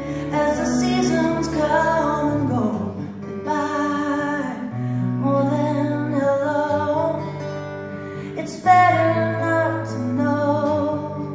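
Live band music with guitar, playing a song's opening over held bass notes, with a sudden louder accent about three quarters of the way through.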